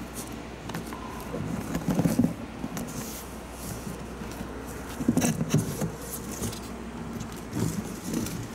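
Cardboard shoe box being handled and its lid lifted off: rubbing and scraping with short knocks, loudest about two seconds in and again around five seconds in, over a steady low hum.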